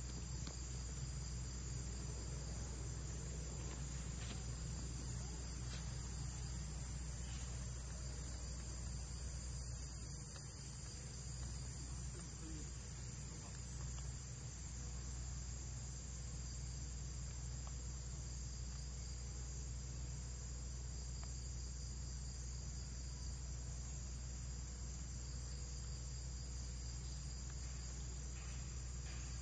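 Steady, high-pitched chorus of insects chirring without pause, over a low steady hum, with a few faint clicks.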